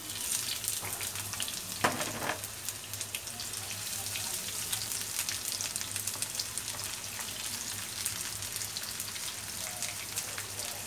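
Sliced onions sizzling and crackling in hot mustard oil as they fry, stirred with a spatula in a nonstick pan, with one short knock about two seconds in.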